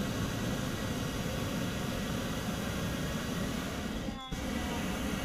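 Hot-air balloon propane burner firing in a long, steady roar that cuts out very briefly about four seconds in and then carries on.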